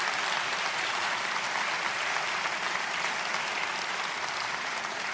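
Congregation applauding steadily, a dense wash of many hands clapping.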